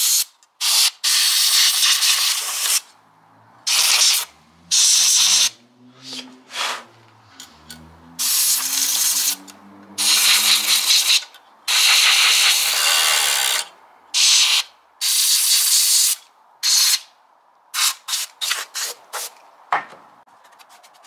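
Can of compressed air (air duster) blowing into the PlayStation 5's vents and gaps to clear dust, in a series of short and longer hissing blasts with pauses between them.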